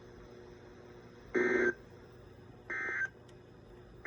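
NOAA Weather Radio SAME end-of-message data bursts, the short buzzy digital tone packets that close an EAS Required Weekly Test, heard through a weather radio receiver's speaker. Two bursts of about a third of a second come roughly a second and a half apart, and a third starts at the very end.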